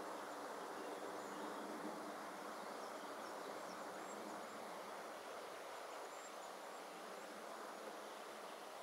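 Quiet outdoor ambience: a steady, even hiss, with a few faint high chirps now and then.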